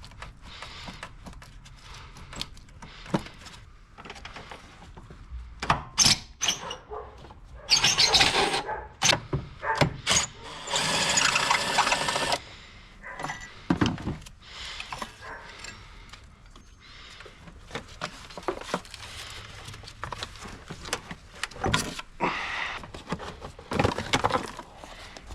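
Tools and parts being handled during spark plug work on a Subaru engine: scattered clicks and knocks, with a louder, busier stretch of tool noise about eight to twelve seconds in.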